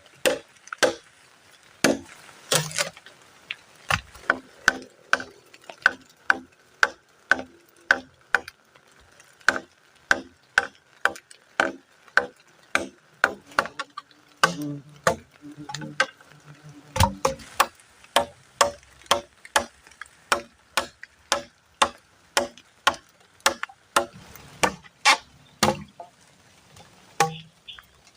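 Wood being chopped with a blade: sharp knocks struck about two a second, with short pauses between runs of strokes.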